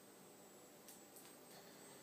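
Near silence: faint steady hiss of room tone, with two soft clicks about a second in.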